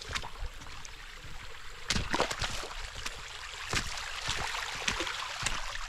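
Footsteps wading down a shallow creek, feet splashing in the water about once a second, over the steady rush of the running stream.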